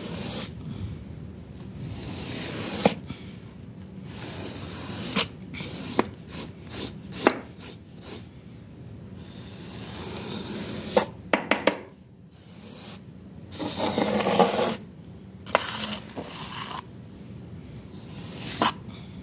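Small stiff brush scrubbing a wet, lathered rug: repeated scraping strokes of the bristles across the soaked pile, with a few sharp knocks here and there.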